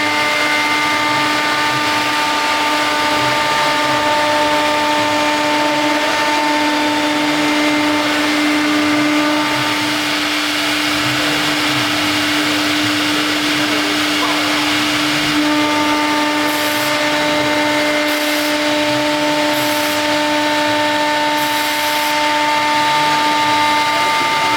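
High-speed CNC router running, its spindle giving a steady whine made of several constant pitches over machine noise. A few short hissing bursts come in about two-thirds of the way through.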